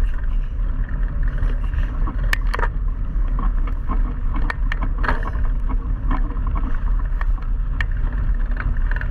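A bikejoring bike rolling fast along a forest track behind a running dog: a steady rumble of wind buffeting the bike-mounted camera's microphone and of tyre noise, with scattered sharp clicks and rattles from the bike.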